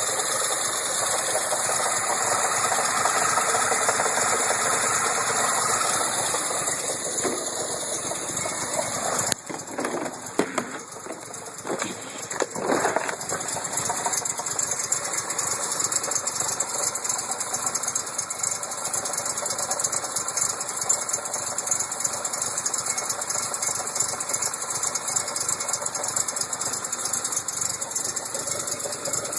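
Datsun engine running with a repeated clunking knock, a mystery noise whose cause is not yet known. The sound changes abruptly about nine seconds in, and a few separate knocks stand out shortly after.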